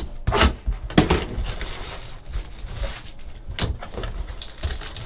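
Cellophane shrink wrap being cut and pulled off a cardboard trading-card hobby box and the box lid lifted open: crinkling plastic and cardboard handling, with a few sharp knocks, the loudest about a second in and again near three and a half seconds.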